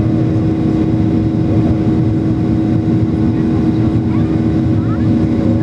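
Boeing 737-800's CFM56-7B turbofan engines running steadily at ground idle, heard inside the passenger cabin as a loud, even rumble with a constant steady hum.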